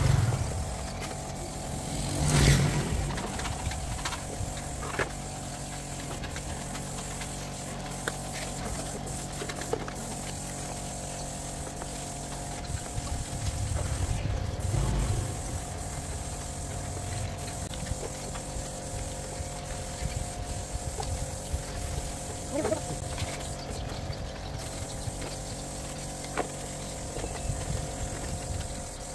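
A machine running steadily, a constant hum with scattered clicks and knocks, swelling louder briefly about two seconds in and again around fifteen seconds.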